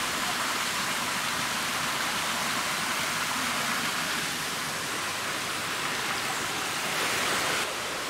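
A rainforest mountain river rushing steadily over boulders and small cascades, a little quieter near the end.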